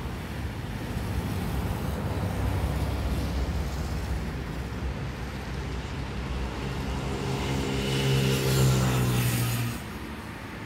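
Road traffic rumble with a nearby motor vehicle engine humming. The engine hum and a hiss grow from about halfway, then cut off suddenly near the end.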